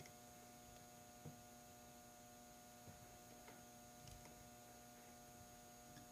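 Near silence: a steady electrical hum, with a few faint, short clicks from small parts being handled.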